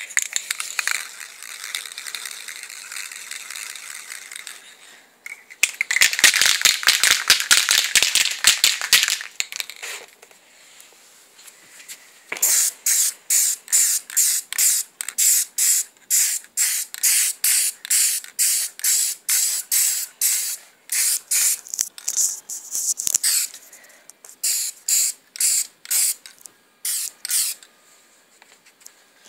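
Aerosol spray paint cans: a steady spray hiss for about five seconds, then a can shaken hard with its mixing ball rattling fast for several seconds. After a pause comes a long run of short spray bursts, about two a second, with a short break and a few more bursts near the end.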